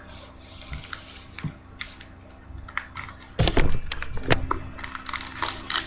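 A trading-card pack being handled and opened: the wrapper crinkles and tears, and the cards click and rustle, loudest in a burst of rustling about three and a half seconds in.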